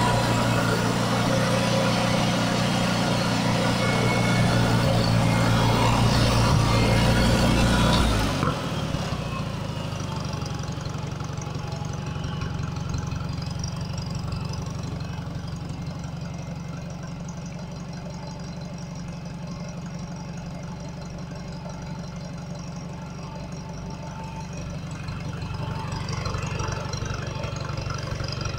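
Late-1950s McCormick International Farmall FU235 tractor's petrol engine running steadily with an even beat. It is loud at first and gets quieter about eight seconds in, then swells a little near the end. The engine runs stably on a new distributor cap, plugs, leads and rotor.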